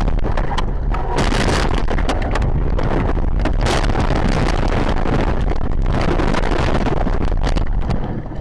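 A car crashing off a snowy road and tumbling through snow and brush: loud continuous crunching and scraping, broken by many sharp knocks and bangs as the body hits the ground.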